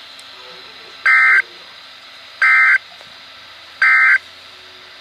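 Emergency Alert System end-of-message data tones from NOAA Weather Radio: three short, identical warbling digital bursts about a second and a half apart, signalling the end of the severe thunderstorm warning. A steady radio hiss runs underneath.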